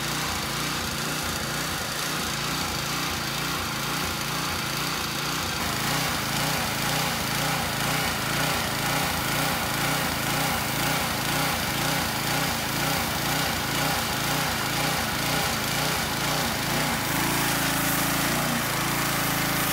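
Pressure washer running steadily while its jet sprays degreased engine parts, an AC compressor and brackets, clean. Its low note changes about three seconds before the end.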